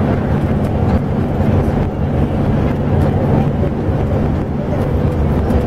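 Steady engine drone and road noise of a vehicle cruising on a highway, heard from inside the cab.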